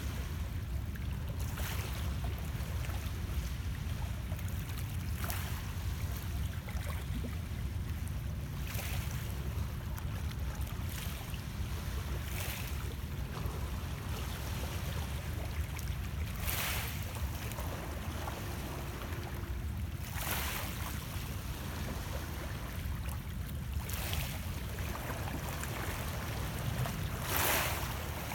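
Small lake waves washing against shoreline rocks, a soft splash and hiss about every three to four seconds, over a steady low rumble.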